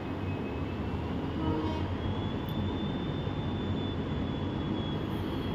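A WDP4D diesel-electric locomotive's 16-cylinder two-stroke EMD 710 engine idling steadily while the locomotive stands still. A thin high whine over the low engine sound rises slightly in pitch about two seconds in.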